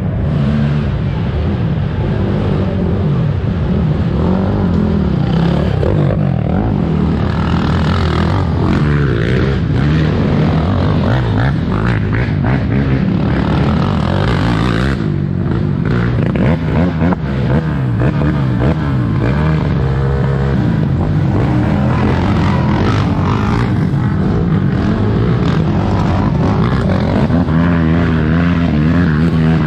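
Racing ATV engines running hard on a cross-country dirt track, rising and falling in pitch as the riders work the throttle, with one quad passing close around the middle.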